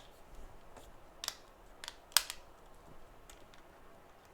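A few short, sharp clicks and light taps of small hard objects being handled on a workbench, the loudest a little past two seconds in.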